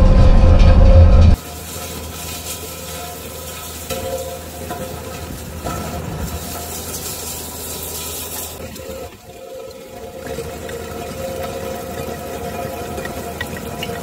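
Bobcat T650 compact track loader's diesel engine running under load while its rotating rake attachment churns and rasps through driveway gravel. It is very loud for about the first second, then steadier and quieter.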